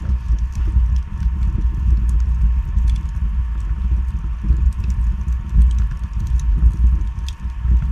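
Wood fire burning in a fireplace: a steady low rumble with frequent small crackles and pops scattered throughout.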